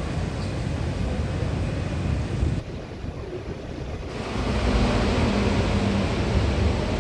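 Rubber-tyred Wenhu line metro train running along the elevated track, a steady rumble and rush with wind noise on the microphone. The sound dips briefly about two and a half seconds in, then swells again with a low steady hum.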